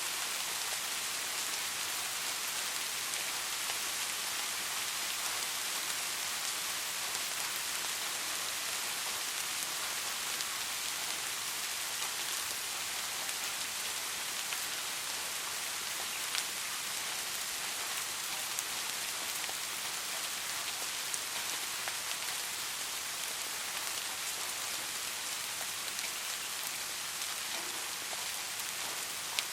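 Steady rain falling on a surface, a constant even hiss with scattered individual drop ticks.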